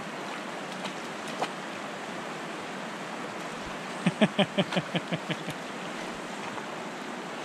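Shallow river running over rocks, a steady rush of water. About four seconds in, a quick run of short voiced syllables from a person cuts over it for a second or so.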